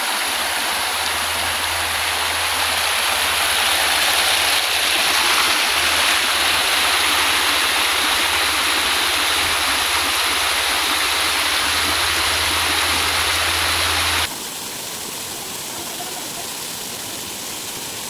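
Waterfall and stream water rushing in a steady, loud hiss. About 14 s in it cuts abruptly to a quieter stretch of running water.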